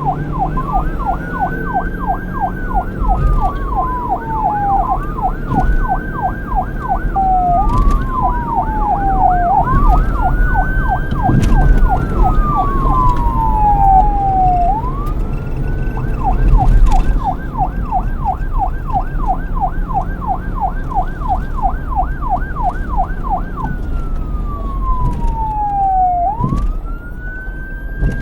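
Electronic police car siren switching between wail and yelp. A slow wail rises and falls every four to five seconds, then about halfway through changes to a rapid yelp of about four sweeps a second for several seconds, then returns to the wail. A steady low rumble runs underneath, with a few sharp knocks.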